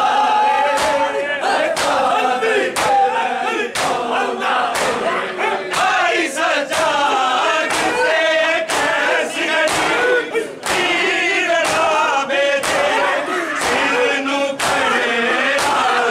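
Crowd of men chanting a Punjabi noha together in mourning, with a steady rhythm of loud hand slaps on bare chests (matam) about once a second.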